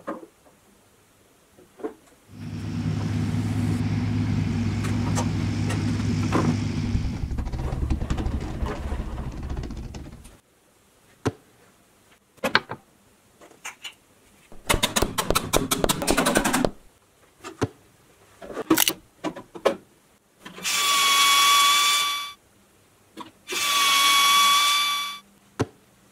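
A power tool motor runs steadily for about eight seconds, changing pitch partway, amid scattered clicks and knocks of plastic toy parts being handled. Later comes a short burst of rapid clicking, then two long electronic tones about three seconds apart.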